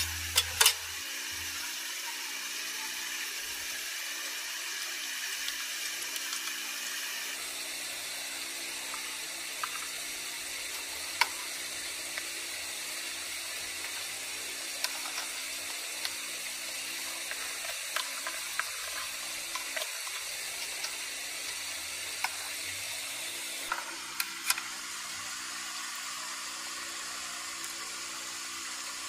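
Steady hiss of food cooking in a pan, with a few light clicks of utensils scattered through.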